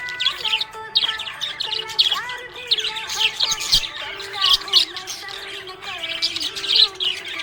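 Budgerigars chirping and warbling: a continuous chatter of quick, overlapping high chirps over held, wavering lower notes.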